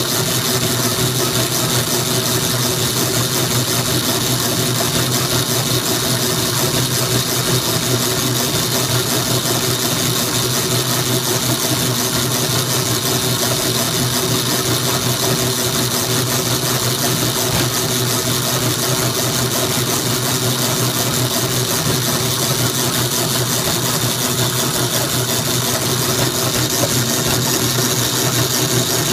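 Dayton power hacksaw running steadily, its reciprocating blade sawing through a metal round bar clamped in the machine's vise.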